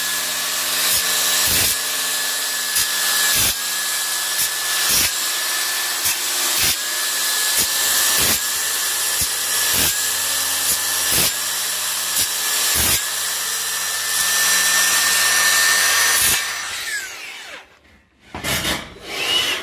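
Circular saw cutting through a 50 mm AAC (autoclaved aerated concrete) panel: a steady motor whine over a gritty cutting noise, with a regular knock a little faster than once a second. The saw is switched off near the end and winds down, its pitch falling.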